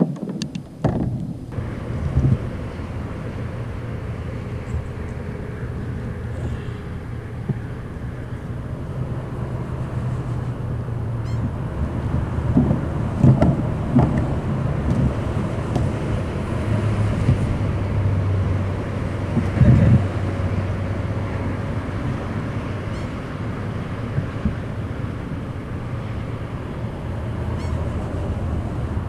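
Steady low engine drone, like a motorboat running on the water, swelling and easing, with a few dull thumps against the kayak hull.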